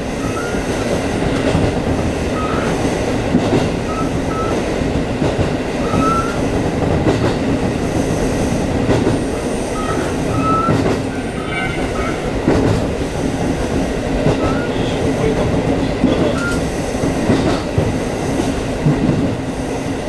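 Diesel railcar running along jointed single track, heard from the cab: a steady rumble of engine and wheels with faint rail-joint clicks and short high wheel squeals here and there.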